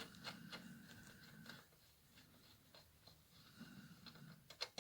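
Near silence with scattered faint clicks, a couple of sharper ones near the end, as the scooter's rear brake cable adjuster nut is unscrewed.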